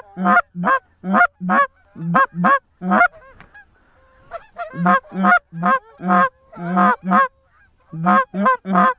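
Goose honks, loud and close, in quick runs of two to four notes, about two or three a second, with a short break about three and a half seconds in.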